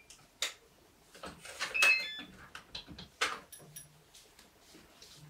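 Front door being opened and shut: a series of latch clicks and knocks, with a short run of electronic beeps from a digital door lock about two seconds in.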